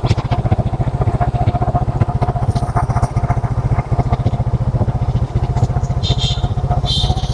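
Motorcycle engine running at a steady speed while riding, its firing pulses rapid and even, with a few light clicks over it.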